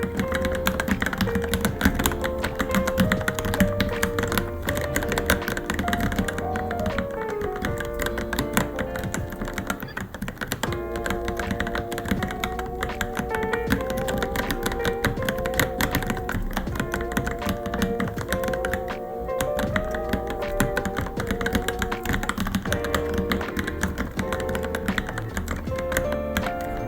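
Continuous fast typing on a Varmilo Minilo mechanical keyboard, keystrokes clicking in quick, uneven succession, with background music throughout.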